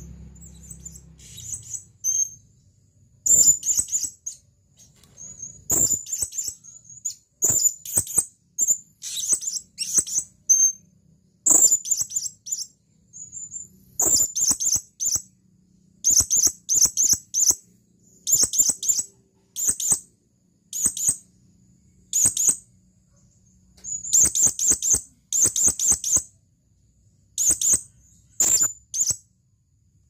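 Male blue-crowned hanging parrot (serindit) calling: short, very high-pitched chirps in quick runs of several notes, repeated every second or two. It is the male's call to a female.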